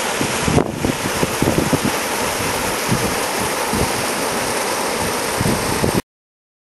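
Waterfall rushing steadily into its pool, with irregular low buffeting of wind on the microphone. It cuts off abruptly about six seconds in.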